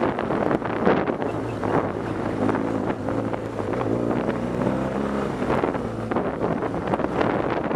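BMW R 1200 GS Adventure's boxer-twin engine running under way on a rough gravel track, its pitch wavering with the throttle, with wind rushing over the microphone and frequent knocks and rattles from the bumpy surface.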